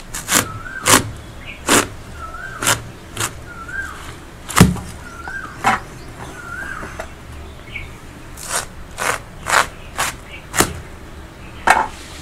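A watermelon being cut on a bonti, a blade fixed upright on a wooden base: a run of sharp, crisp cracks, about a dozen, as the rind splits and slices come away. A bird repeats a short rising-and-falling call five or six times in the background over the first seven seconds.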